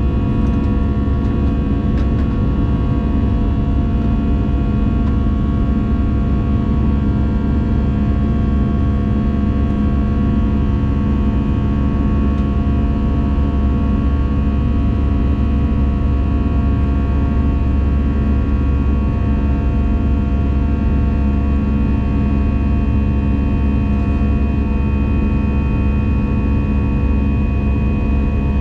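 Steady cabin noise inside an Airbus A220 in flight: the drone of its Pratt & Whitney PW1500G geared turbofan engines and the passing airflow, a deep rumble with several steady tones over it.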